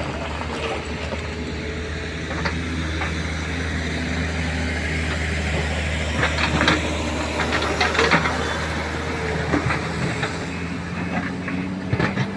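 JCB 3DX backhoe loader's diesel engine running steadily, with scattered clanks and scrapes of the bucket working stone, most of them from about six seconds in.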